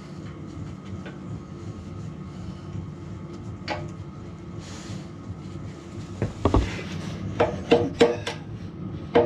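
Steady low rumble of a running space heater, and from about six seconds in a series of sharp metal-on-metal knocks with a short ring, about seven in all, like hammer blows on steel.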